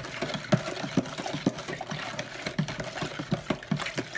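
A utensil stirring a liquid mix in a plastic pitcher to dissolve added sugar. It knocks and scrapes against the pitcher's sides about three or four times a second, with the liquid swishing.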